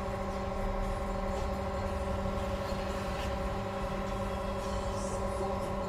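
Steady machine hum made of several level tones, with a few faint light handling sounds over it.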